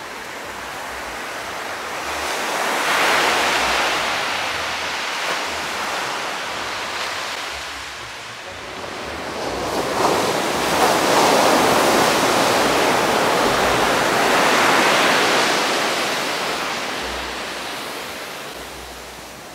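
Large ocean waves breaking on a rocky shore: two long swells of surf wash, the second longer and a little louder, each building and then fading away. Wind buffets the microphone now and then.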